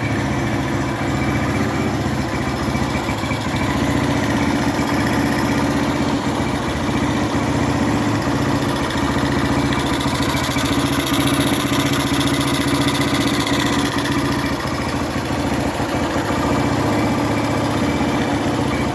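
Single-cylinder four-stroke engine of a 2011 Honda Fan 125 motorcycle idling steadily after a top-end rebuild with oversize piston. It runs smoothly with no knock: the earlier engine noise from a piston and cylinder worn by lack of oil is gone.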